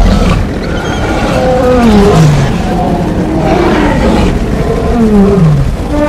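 Cartoon stampede sound effect: a steady low rumble of many running animals, with animal roars and calls that slide down in pitch again and again.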